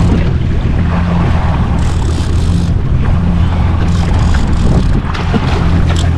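Jet ski engine idling steadily, with wind buffeting the microphone and water splashing against the hull.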